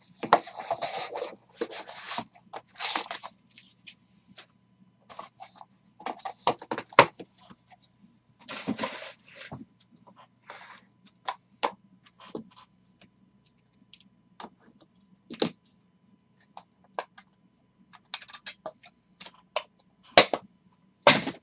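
Hands handling a trading-card box and clear plastic card holders: scattered scrapes, rustles and sharp clicks of cardboard and hard plastic, with two loud clicks about a second apart near the end.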